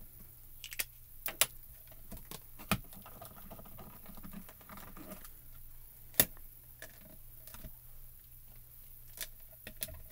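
Scattered light clicks and taps of clear acrylic stamps and a stamp-positioner platform being handled while a leaf is re-inked and stamped, with one sharper knock about six seconds in.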